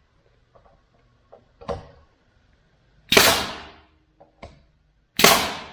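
Two loud, sharp bangs about two seconds apart, each trailing off over about half a second, as the glued oak edge strips are fastened to the shuffleboard top. Lighter knocks and taps come between them.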